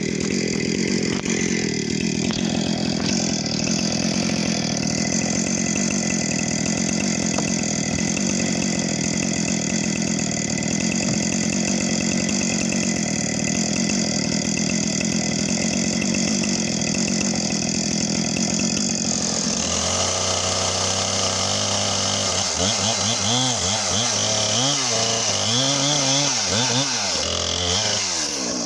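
Two-stroke chainsaw running at high throttle, cutting wood. About twenty seconds in its pitch starts to swing, revving up and dropping back several times.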